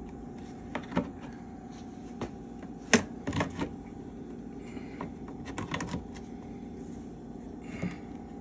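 Scattered plastic clicks and knocks as a small power-return alarm unit is slid down onto its plastic mounting bracket and pressed into place, the sharpest knock about three seconds in. A steady low hum runs underneath.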